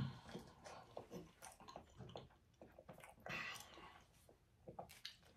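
A person eating a piece of fruit: quiet chewing with small wet mouth clicks, and a brief louder noise about three seconds in.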